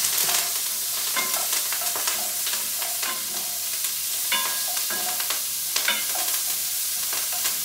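Onions, garlic and herbs sizzling in hot fat in a Dutch oven where chicken has just been browned, with a few scrapes and knocks as they are pushed off a wooden cutting board into the pot. The pan is very hot, a little hotter than the cook wants.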